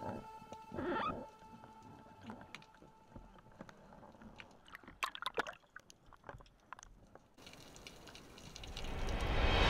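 Underwater ambience picked up by a speargun-mounted camera: faint water movement with scattered clicks and crackles, a small cluster of them about five seconds in. Near the end a louder wash of sound swells up.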